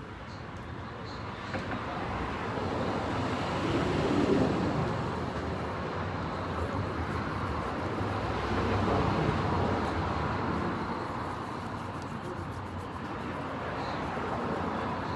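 Road traffic going by, a steady rush that swells twice, about four and nine seconds in.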